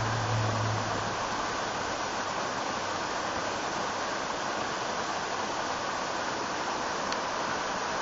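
Steady rush of river water pouring and splashing over rock in a small cascade.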